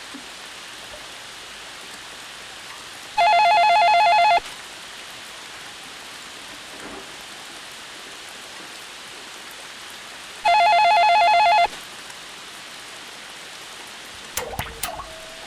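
A telephone ringing twice, each ring a steady electronic tone lasting about a second, some seven seconds apart, over a steady hiss of rain. A few sharp clicks come near the end.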